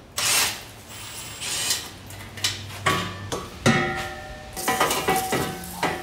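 A run of sharp metallic clanks and knocks, about six, from exhaust pipe sections being handled and fitted under the car, over quiet background music.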